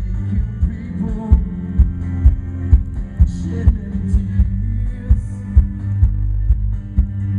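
Live band music, loud, with heavy bass and a steady thumping beat of about two strikes a second.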